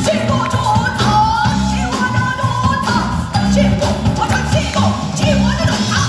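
A Korean traditional orchestra plays a dance piece arranged for popping, over a heavy, evenly repeating bass beat, with a sliding melody line on top.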